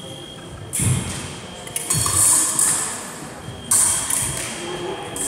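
Fencing foils clashing and scraping, several sharp metallic hits that ring in a large hall, with a foot stamp on the wooden floor about a second in. A steady high electronic beep, typical of a fencing scoring box registering a hit, starts just under four seconds in.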